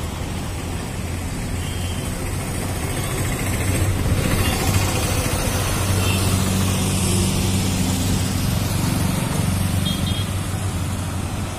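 Road traffic passing close by: car and motorcycle engines with tyre noise, a steady hum that grows louder for several seconds in the middle as vehicles go by.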